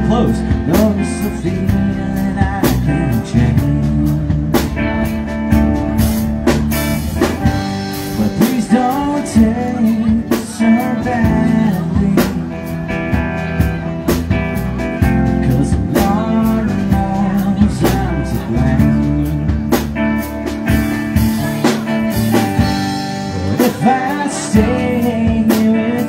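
Live rock band playing with electric guitar, electric bass and drum kit. The guitar bends notes over a steady beat of drums and cymbal hits.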